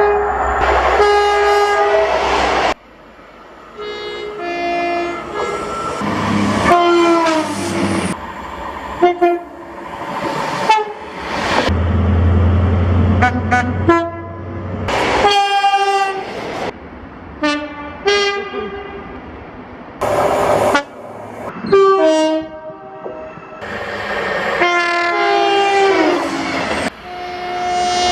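Train horns sounding one after another in a rapid series of short, abruptly cut clips: multi-note chord blasts, a few dropping in pitch partway through, with the rumble of passing trains between some of them.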